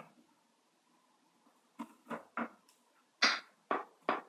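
A table knife cutting through a brownie and scraping against a ceramic baking dish: about six short scrapes and taps, beginning about two seconds in.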